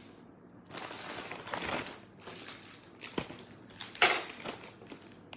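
Folded clothes being handled and pulled from stacked piles: fabric rustling in bursts, with a short knock about three seconds in and the loudest rustle about a second later.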